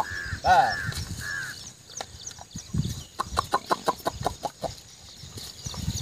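Chicken clucking: a few drawn-out calls at the start, then a quick run of short clucks, about six a second, a little past halfway.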